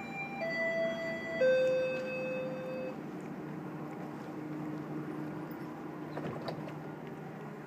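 GO Transit bi-level coach door-closing chime: three descending tones, the last held longest, warning that the doors are about to close. After the chime a steady low hum from the train continues, with a few faint clicks.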